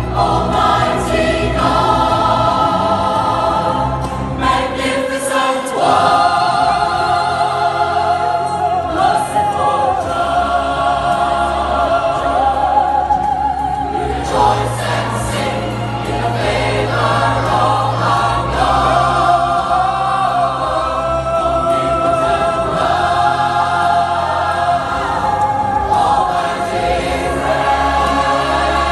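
Large mixed choir singing a worship song in English ("We rejoice and sing in the favour of our God"), over sustained low accompaniment notes.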